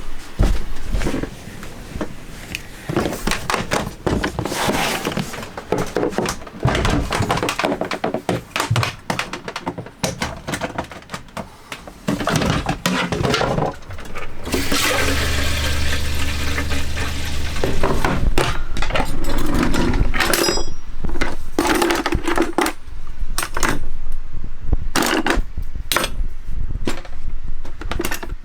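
Clinks and knocks of cups, utensils and coffee gear being handled while coffee is made. About halfway through, a small motor hums steadily for about three and a half seconds.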